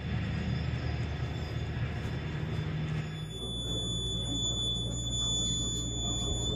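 A vehicle's engine running steadily with a low rumble. About halfway through, a steady high-pitched whine joins it.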